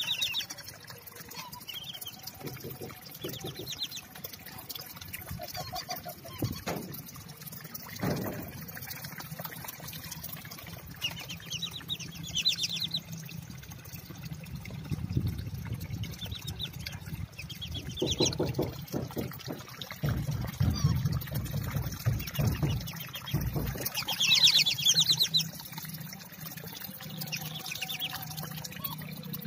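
Whistling ducks calling in short bursts of shrill, rapidly repeated whistled notes every few seconds, over a steady trickle of water from a small pond pump.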